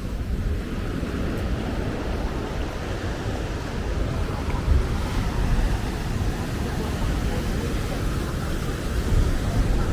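Sea waves washing onto the beach, with wind buffeting the microphone in gusts about halfway through and near the end.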